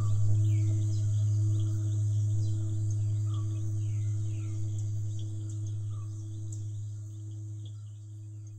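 A low-pitched struck bell ringing out, its single deep tone fading slowly away. Short falling bird chirps and a steady high insect drone are heard under it.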